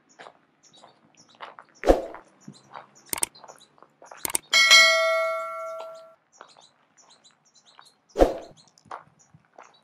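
A piece of metal struck once and clanging, ringing out with several clear tones for about a second and a half, with sharp knocks before it and a heavy knock near the end. Birds chirp faintly.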